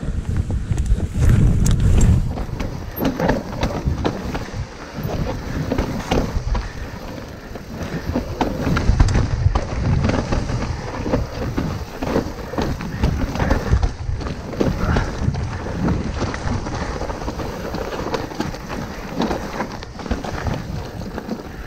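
Mountain bike descending rough trail: tyres rumbling and knocking over the ground, with the bike's chain and frame rattling in a dense, irregular clatter, with the heaviest knocks about two seconds and nine seconds in.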